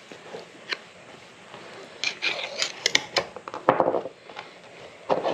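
A rubber CV joint boot being pried loose from a side-by-side's axle with a small hand tool: scraping and sharp clicks, then a heavier knock about two-thirds through and another knock near the end.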